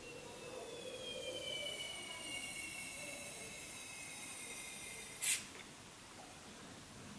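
Air blown by mouth through a mouthpiece into the valve of an inflatable rubber ball: a faint thin whistle that sinks slightly in pitch as the ball fills. About five seconds in there is one short, sharp burst of noise.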